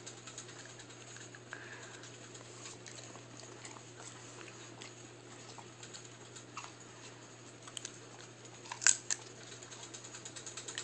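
Quiet room tone with a steady low hum, a few faint clicks, and one sharper click about nine seconds in.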